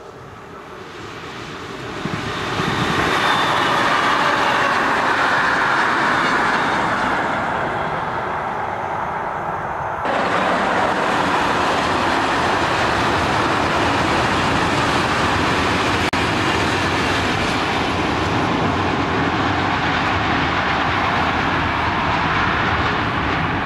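Electric locomotive-hauled freight train passing close by: a steady rumble of wheels on rail that builds over the first three seconds and stays loud. The sound shifts abruptly about ten seconds in.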